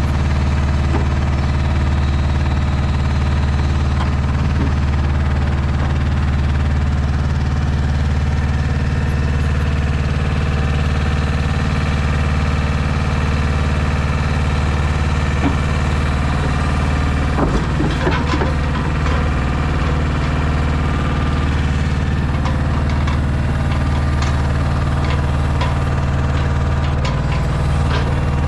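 DAF XF 480 truck's diesel engine running at a steady speed, driving the hydraulics of the truck-mounted Kennis 14R loader crane. About two thirds of the way through, a few knocks and clatters come from the crane's grab handling a pack of concrete paving stones.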